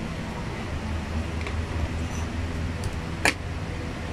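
Steady low background hum with a noise haze, with one sharp click about three seconds in and a couple of faint ticks before it.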